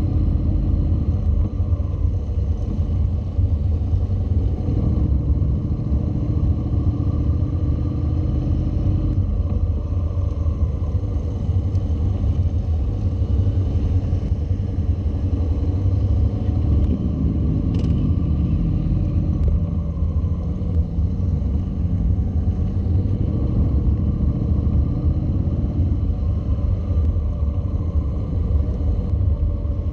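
Honda NC700's parallel-twin engine running, heard from the bike itself, with a steady low rumble; its note changes about a third of the way in and again near the end as the throttle changes.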